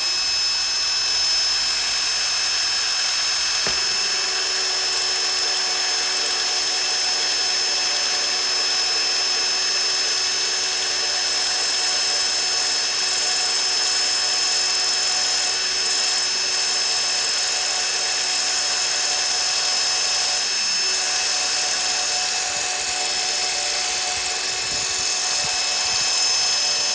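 Electric drill with a masonry bit running steadily, boring through a wooden board into the cement slate behind it: a loud, steady whine.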